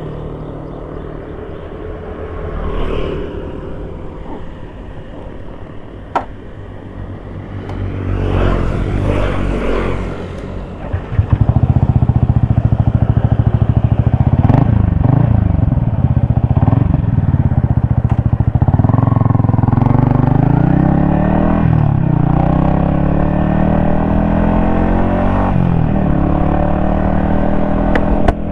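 Yamaha XSR155's single-cylinder engine running at low revs, then about eleven seconds in it gets much louder as the bike pulls away and accelerates through several gears, the engine pitch climbing and dropping back with each upshift.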